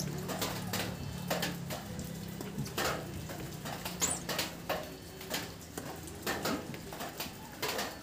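Parrot's claws and beak clicking and scratching on the wire mesh of its cage as it climbs, in irregular taps, with a brief high squeak about four seconds in. A low steady hum sits underneath and fades out about six seconds in.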